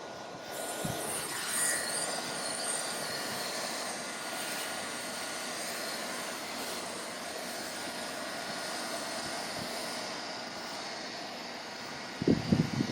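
Heat gun blowing steadily, a fan hiss with a faint constant whine, drying the cleaned rubber roof. A few short low thumps near the end.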